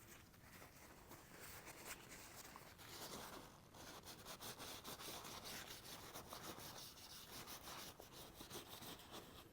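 Cloth rubbing and wiping oil and old grime out of the breech of an 1884 Springfield trapdoor rifle: faint, irregular scrubbing strokes.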